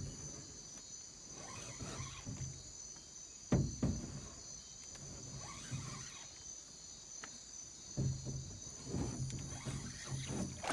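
Night insects, crickets among them, chirring steadily, with a few low knocks about three and a half seconds in and a run of soft low thuds near the end.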